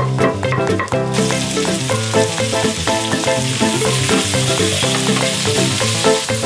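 Sliced onions and garlic sizzling in hot oil in a non-stick pan while being stirred with a spatula. The sizzle starts about a second in, under steady background music.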